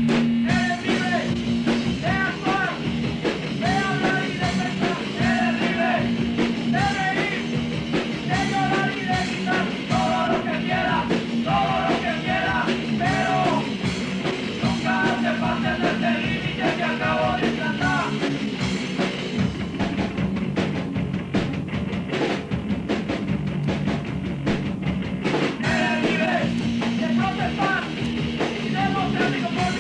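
Punk rock song with shouted singing over a full band and drum kit. The vocals drop out for a few seconds past the middle while the band plays on, then come back near the end.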